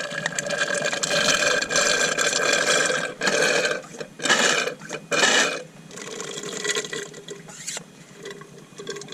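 Power steering fluid pouring out of the removed pump and lines into a container, a steady liquid sound that stops after about three seconds. Three short, loud rattling noises follow in quick succession, then quieter handling sounds.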